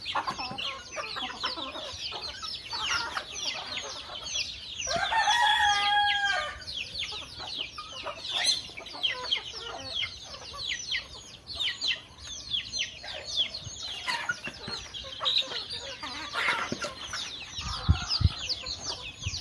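A flock of chickens clucking with many short, high, falling calls, and a rooster crowing once about five seconds in. A few low knocks near the end.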